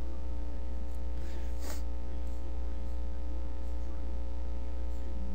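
Steady electrical mains hum with a stack of even overtones on the recording, with a faint brief noise about a second and a half in.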